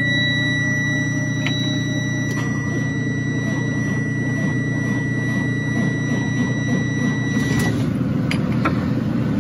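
School bus diesel engine, with the key held at START, giving a loud, low, steady sound. Over it a high, steady dashboard warning buzzer sounds and cuts off about three-quarters of the way through.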